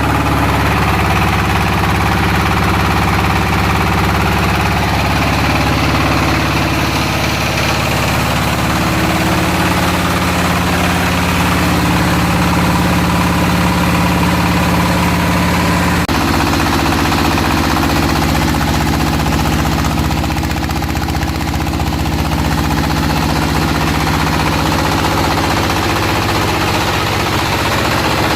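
Floating fish-feed pellet extruder machine running steadily under power, a loud continuous machine drone. Its tone shifts abruptly about halfway through.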